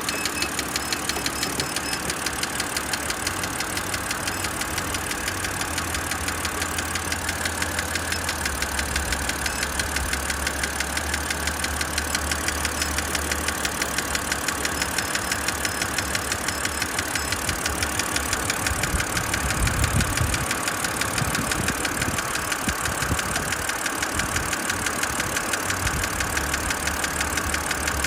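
BMW X3 E83 engine idling with a steady rapid ticking, a brief low rumble about twenty seconds in; the owner suspects a misfire on one cylinder, though the OBD2 reader shows no fault.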